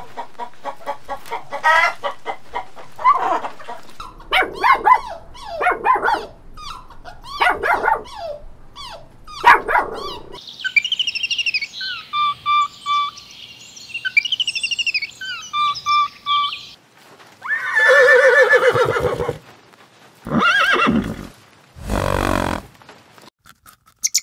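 A series of different animal calls: a hen clucking in short repeated calls at the start, then a run of louder pitched calls, a stretch of high, rapid chirping in the middle, and a few longer calls near the end.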